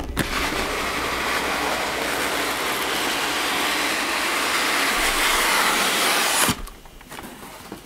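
Cardboard sliding on cardboard: a snug inner shipping box scraping steadily as the outer box is drawn up off it, ending with a sharp knock about six and a half seconds in.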